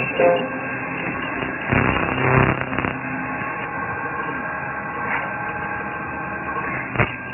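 CNC metal spinning machine running as its roller presses a spinning metal barrel into shape, a steady machine hum with several held tones. It gets louder and rougher for about a second around two seconds in, and there is one sharp knock near the end.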